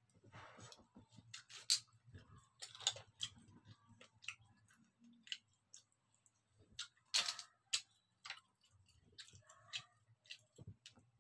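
A metal spoon scraping and clicking against scallop shells while eating grilled scallops on the half shell, in irregular sharp clicks with a few short scrapes.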